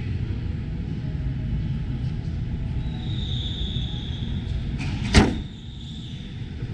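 A car bonnet being shut with a single sharp bang about five seconds in, over the steady din of a busy exhibition-hall crowd.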